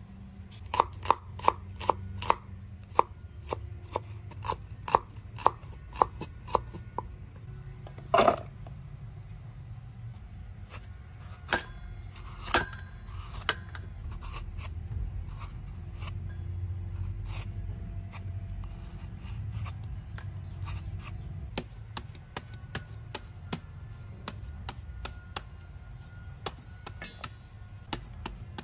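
Knife chopping food on a cutting board. It starts with a quick run of sharp strikes about two a second, then gives scattered single chops, then another run of lighter strikes near the end.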